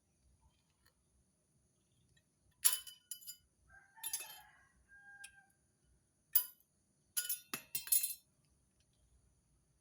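Metal tools and steel parts clinking and clanking against each other in a string of separate knocks, some leaving a short ring. They come in clusters about a third of the way in and again in a quick run near the end.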